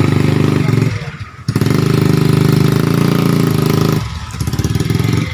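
Motorcycle engine running loud and steady, stopping sharply for about half a second a second in, then running again and dropping to a lower level about four seconds in.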